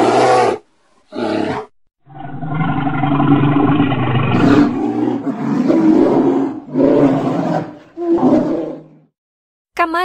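Bear roaring: two short roars in the first two seconds, then a long roar of several seconds broken by short pauses, stopping about a second before the end.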